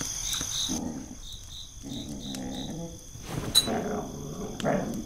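Rough, growl-like vocal sounds in three bursts from a creature or animal. Crickets chirp steadily behind them over the first half.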